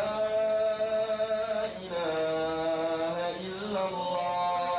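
Background music: a single voice chanting in long held notes, sliding from one note to the next about every one to two seconds.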